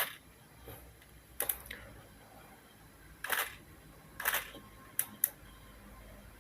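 Nikon D80 DSLR shutter and mirror firing four times, each a quick double click, one to two seconds apart, with two lighter sharp clicks near the end. The Godox TT600 speedlight on the hot shoe is misfiring on these shots.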